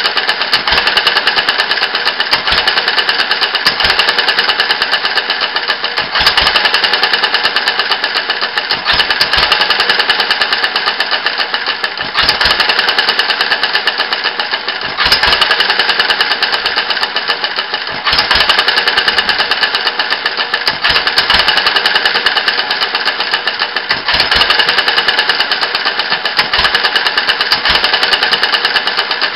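Open-crank petrol engine running after a rebuild: a loud, fast mechanical clatter with heavier thumps coming at irregular intervals. The engine has freshly fitted gaskets and is running smoothly.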